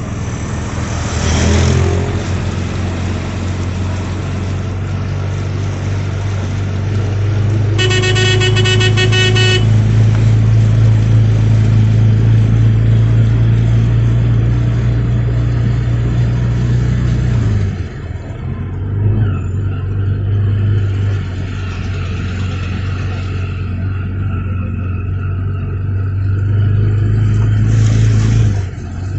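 Auto-rickshaw engine running with a steady low hum while driving through floodwater. About a second in there is a short rush of splashing as a motorcycle passes through the water. About eight seconds in a horn sounds for nearly two seconds.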